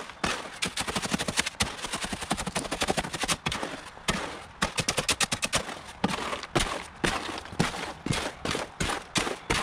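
Shovel blade chopping and scraping through wet concrete against the bottom of a mixing tub: rapid, uneven knocks and scrapes, several a second, as the mix is worked to break up dry chunks.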